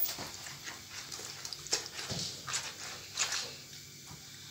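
Wet squelching of marinated raw chicken pieces being lifted out of a plastic bowl and pressed onto a foil-lined baking tray, in a few short, irregular squishes.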